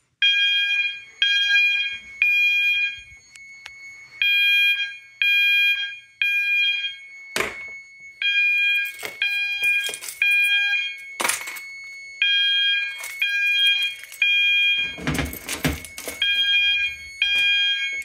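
System Sensor MASS fire alarm sounder set to its 800 Hz tone, sounding in the panel-coded temporal code-3 pattern: three short blasts, a pause, repeating about every four seconds. A fainter steady high tone runs underneath, and a few sharp clicks or knocks come through partway in.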